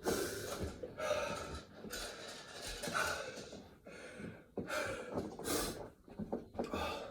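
A man gasping and breathing hard, a heavy breath about every second, winded from burpees.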